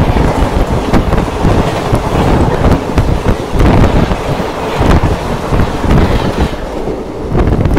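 Passenger trains running at speed on parallel tracks, heard through an open coach window: a loud rumble of wheels on rails with scattered clacks, and wind rushing over the microphone.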